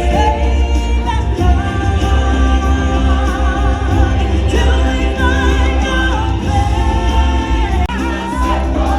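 Music with singing voices over a strong, steady bass line.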